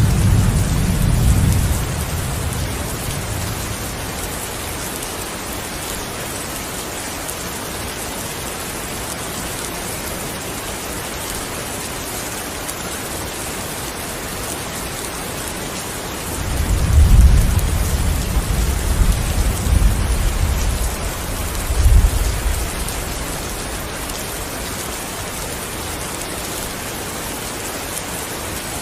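Steady heavy rain with rolling thunder: a low rumble fading in the first couple of seconds, and another rolling for about six seconds past the middle, with a sharper peak near its end.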